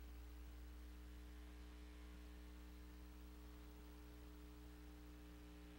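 Near silence: a low steady hum with faint hiss.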